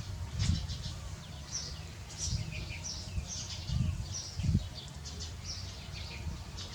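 Small birds chirping again and again in short high calls, with a few dull low thumps among them.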